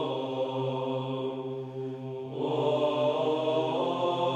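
Sung chant over a held low drone, used as background music. The voices fall back a little, then swell louder about two and a half seconds in.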